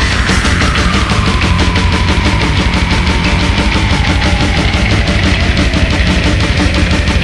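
Thrash death metal recording: distorted guitars over rapid, even drumming, with a long held note slowly sliding down in pitch during the first few seconds.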